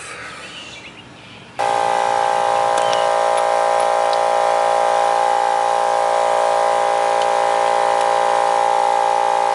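Air impact wrench running with a steady whine, starting abruptly about one and a half seconds in, as it is driven on a wheel's lug nut through a security lug adapter.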